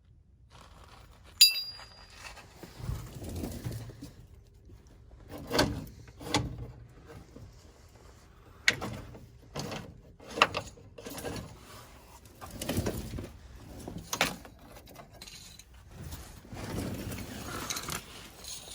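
Metal clinks, taps and scrapes of a steel parking brake cable and its fittings being handled and fitted, with a sharp ringing ping about a second and a half in and irregular knocks after it.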